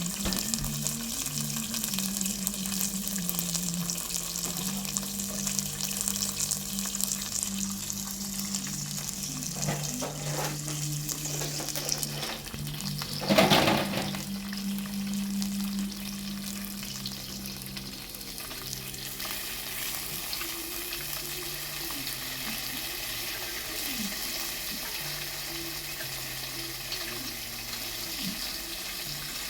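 Food frying in a pan, a steady sizzle, with one brief louder burst of noise about halfway through.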